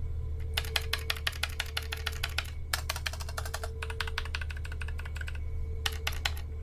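Clicky blue mechanical switches pressed rapidly: a fast clatter of sharp clicks in several runs with short pauses between them.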